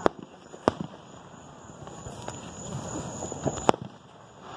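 Fireworks going off: several sharp bangs at uneven intervals, the loudest just before the end.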